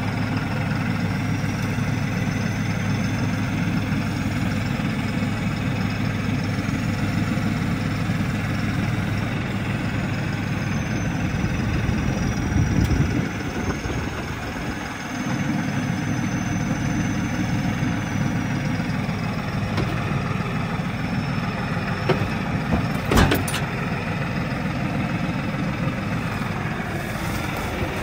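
New Holland Workmaster 75 tractor's diesel engine running steadily at idle, its low note dipping briefly about halfway through. A couple of sharp knocks stand out about three-quarters of the way in.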